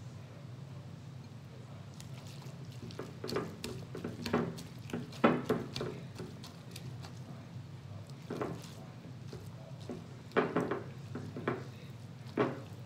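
A utensil stirring and lifting wet noodles in a bowl: scattered clinks and scrapes against the bowl, some in quick pairs, over a steady low hum.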